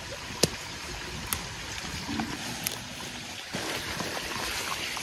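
Chillies being picked by hand: a few sharp snaps of stems breaking off the plant, with leaves rustling over a steady hiss.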